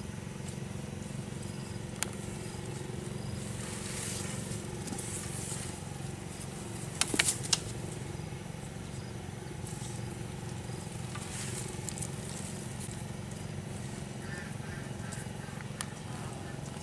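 Homemade wire-and-net bird trap springing shut on bare dirt: a short, loud clatter about seven seconds in as the net frame snaps closed. There is a single click about two seconds in and rustling in the dirt and dry leaves, all over a steady low hum.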